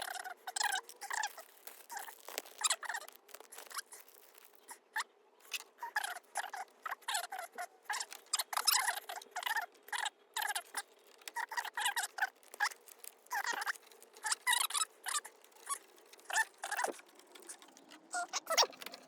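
Hands working on a car's dashboard trim and start-button assembly: a long run of small, irregular clicks, taps and scrapes of plastic and metal parts being handled.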